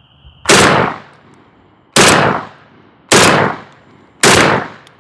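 Hatsan Bulltac 12-gauge semi-automatic bullpup shotgun firing four loud shots in quick succession, a little over a second apart, each followed by a short fading echo.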